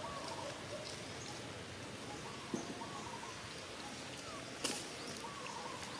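Outdoor ambience: a steady hiss with faint, scattered chirping calls. Two sharp clicks come through it, a weaker one about halfway in and a louder one about three-quarters of the way in.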